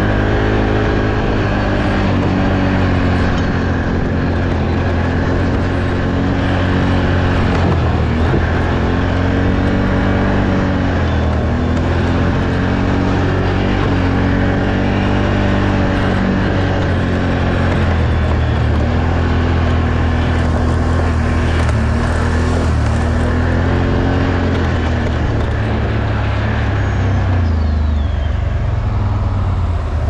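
Off-road vehicle engine running hard and loud, its pitch rising and falling again and again as the throttle is worked through a mud ride.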